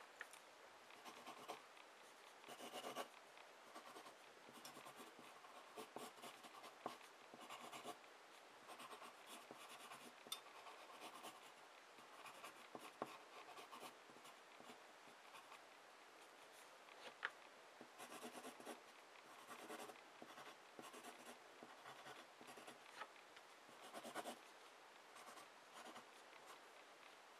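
Wooden graphite pencil scratching faintly across a sheet of paper in runs of short strokes, with brief pauses between runs, as block numbers are outlined and shaded.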